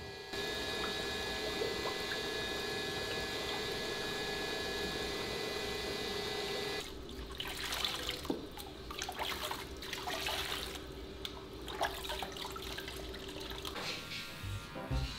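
Bath water for a small dog: a steady stream of running water for several seconds, then uneven pouring and splashing as water is tipped over the dog from a bowl.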